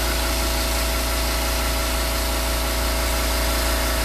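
Air-powered die grinder running steadily at a constant pitch, its grinding stone spinning inside a mini lathe's three-jaw chuck to grind the jaw faces true as the chuck is turned by hand.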